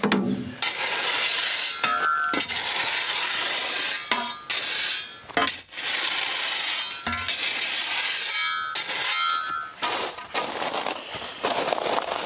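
Small white gravel tipped from a metal wheelbarrow and spread with a spade around the foot of a post: long rattling pours of stone with clinks and scrapes, broken by short pauses. Two brief high metallic squeals come about two seconds in and again past the middle.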